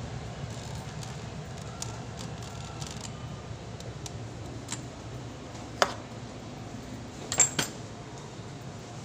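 Several sharp metallic clinks over a steady low hum: light ticks at first, then a louder clink about six seconds in and a quick double clink near the end.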